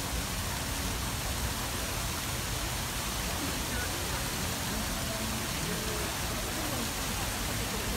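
Steady rushing outdoor noise, with faint distant voices of people.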